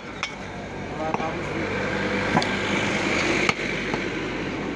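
A few sharp knocks of a butcher's cleaver and meat on a wooden log chopping block. Underneath are brief voices and a broad traffic noise that swells through the middle seconds and eases near the end.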